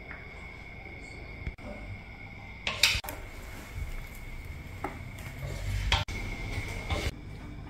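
Kitchen utensil clinking against an aluminium wok and plastic food containers as fried noodles are portioned out: a few sharp clinks and clatters, the loudest about three seconds in. A steady faint high whine runs underneath.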